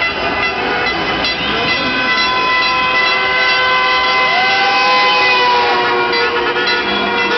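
Many car horns honking at once in long held blasts, a dense chord of steady tones at different pitches.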